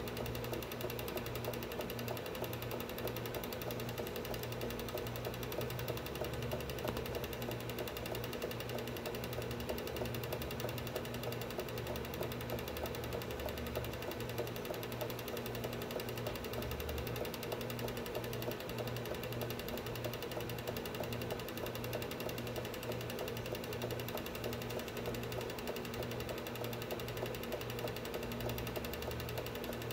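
Film projector running: a fast, steady mechanical clatter of the film advance over a constant motor hum.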